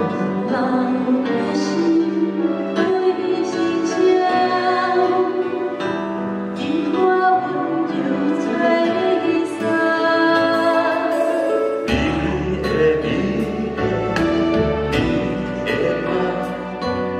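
A man and a woman taking turns singing a duet over instrumental accompaniment. About twelve seconds in, a bass and a steady drum beat come in.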